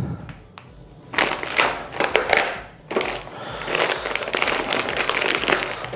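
Crinkling, crackling handling noise with scattered clicks as a handful of walnuts is taken for the soup, starting about a second in.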